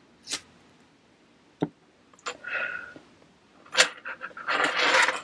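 Handling sounds of a disposable lighter and a fabric wallet: a few short sharp clicks and a longer stretch of rustling near the end.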